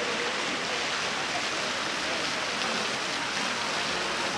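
Outdoor town-square ambience: a steady, even hiss with faint voices of passers-by in the distance.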